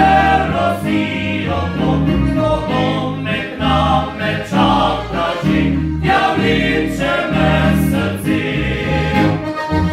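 Live Slovenian folk song: several men singing in harmony, accompanied by a button accordion and guitars over a steady bass line.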